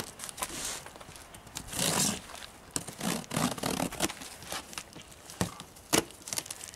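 A cardboard box being cut and torn open: a blade scraping through the packing tape and cardboard, with rustling and tearing about two seconds in and scattered knocks and clicks, the sharpest about six seconds in.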